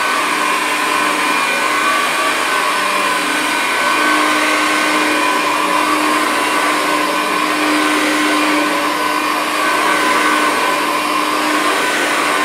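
Vax Life 18-volt cordless upright vacuum cleaner running on carpet, its motor and brushbar giving a steady high whine over a rush of airflow as it is pushed back and forth.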